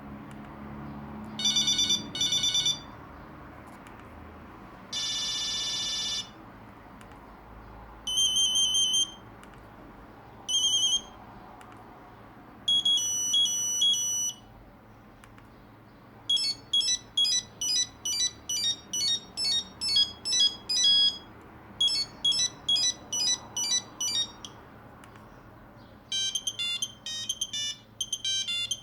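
A Nokia 2100 mobile phone's speaker playing a run of its monophonic ringtones and alert tones one after another, with pauses between them. First come short high beep patterns and a single held tone. Then a quick many-note beeping melody plays for several seconds, and another fast melody starts near the end.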